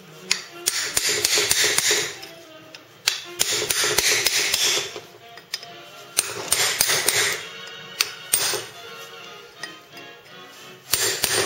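Hammer striking a cold chisel in several runs of quick blows, a few seconds apart, bending back the tabs of a steel lock plate on the bolts of a 1948 Chevrolet 3-speed transmission's bottom mount so the bolts can be removed. Background music plays throughout.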